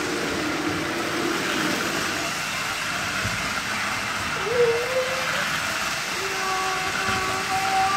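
Lionel O-gauge toy trains running on three-rail track: a steady whir and rumble from the locomotive motors and the wheels on the rails.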